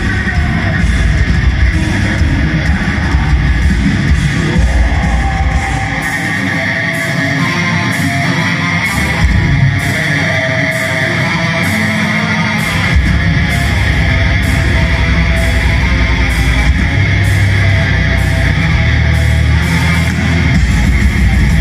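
Black metal band playing live, loud distorted electric guitars over drums. The deep low end drops away about six seconds in and comes back about thirteen seconds in.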